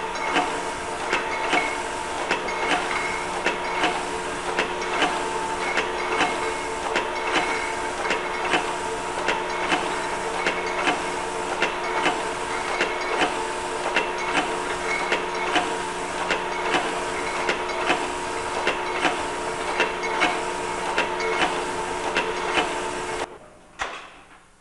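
MultiFill pocket filler running as it doses sliced mushrooms into glass jars: a steady mechanical hum with a regular clack about every two-thirds of a second. It cuts off abruptly about a second before the end.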